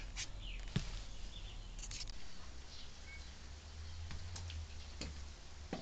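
A few faint, scattered clicks and light knocks, the sharpest about a second in, over a low steady hum: small handling noises of metal parts and wooden blocks.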